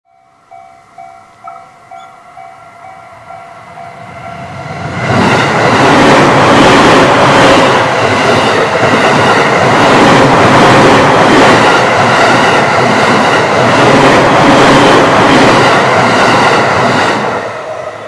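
Railroad crossing bell ringing about twice a second, then an E231-series electric commuter train runs through the crossing. The train is loud from about five seconds in and dies away near the end.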